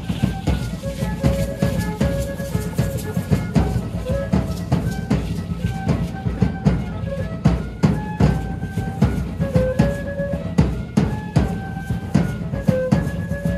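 Dance music: a drum beating a steady, driving rhythm, with a melody of short, held high notes played over it.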